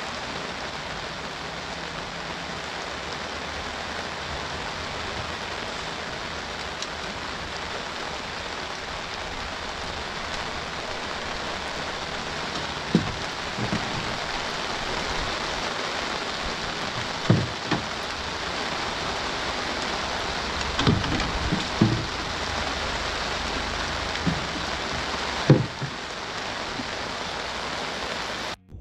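Heavy rain pouring steadily, falling on the river and on an umbrella held just overhead. A few short, low knocks stand out in the second half, the loudest near the end.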